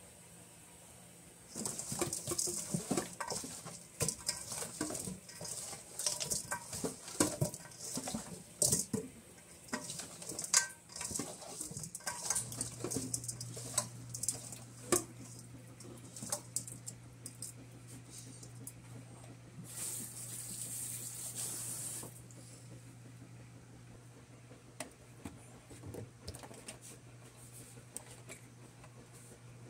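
Hands tossing seasoned oxtail pieces in a stainless steel bowl: wet meat being handled, with knocks and scrapes against the metal bowl, for about ten seconds. Then a steady low hum sets in, with a brief hiss about two-thirds of the way through.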